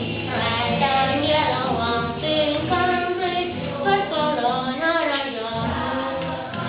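A song with high voices singing a melody, with held and sliding notes throughout.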